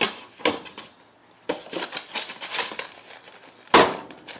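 Bowl and plate knocking and clattering several times as a microwave-baked cake is turned out onto the plate, the loudest knock a little before the end.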